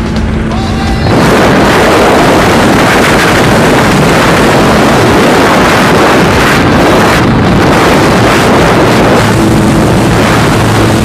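Rushing wind and jump-plane engine noise through the open door of a skydiving aircraft, buffeting the microphone. It jumps sharply louder about a second in and then holds steady.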